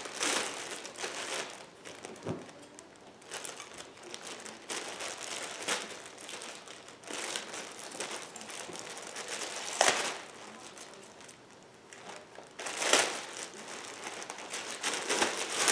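Clear plastic packaging bag crinkling and rustling in irregular bursts as it is handled and pulled open, with two louder rustles in the second half.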